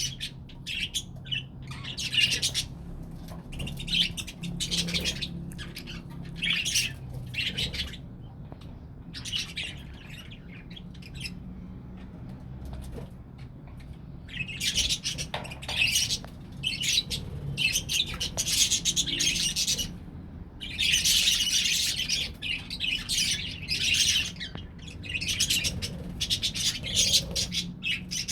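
A flock of budgerigars chattering and chirping in irregular bursts with short pauses between, busiest in the second half, over a faint low steady hum.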